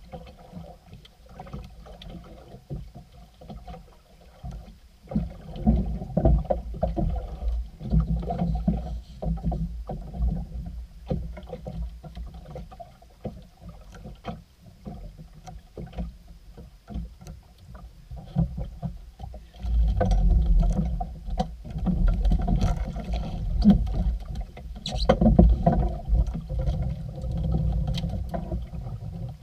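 Water sloshing against the hull of a small outrigger boat, a low uneven noise with scattered short clicks and knocks; it grows louder from about twenty seconds in.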